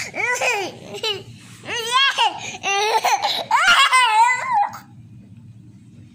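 Toddler laughing in high-pitched bursts, three bouts that stop about five seconds in.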